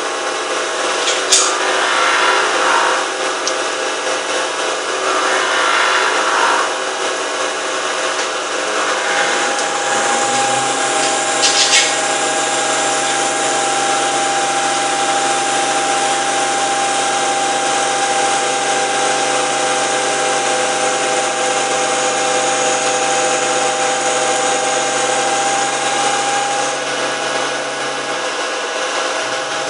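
CNC lathe machining: the machine runs with a continuous whine and cutting noise, a steadier pitched hum setting in about nine seconds in and dropping away near the end, with a couple of sharp clicks.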